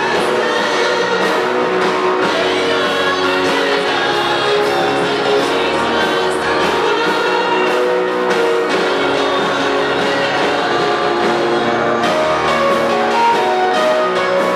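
Gospel music with singing over instruments, steady and continuous.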